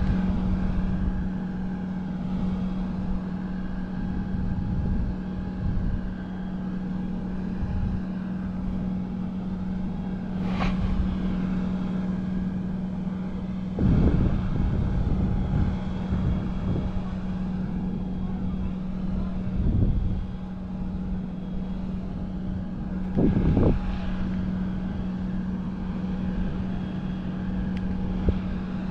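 Wind buffeting a GoPro's microphone during a parasail flight, rough and gusting, louder in bursts a few times, over a steady droning hum from the tow boat's engine below. One sharp click about ten seconds in.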